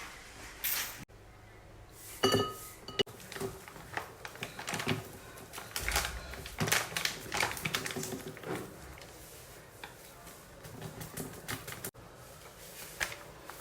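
A run of light clicks, taps and clattering knocks, like small household objects being picked up and set down, irregular and broken off abruptly a few times.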